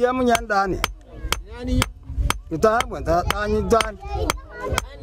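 Blacksmith's hand hammer striking metal in steady, sharp blows about twice a second, with people talking over the hammering.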